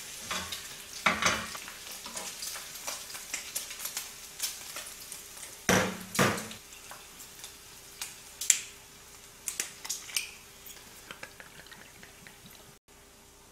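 Pork belly strips sizzling and spitting in a frying pan, with many sharp pops of fat and a few louder knocks of tongs and fork against the pan.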